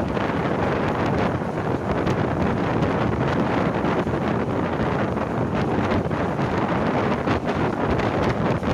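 Wind buffeting the microphone at the open door of a fast-moving passenger train, over the steady running noise of the coach on the rails.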